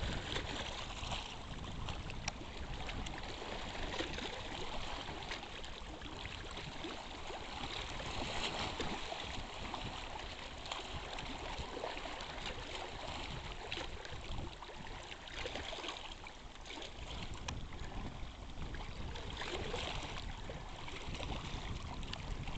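Choppy lake water lapping and splashing against a rocky shore, with steady wind rumbling on the microphone.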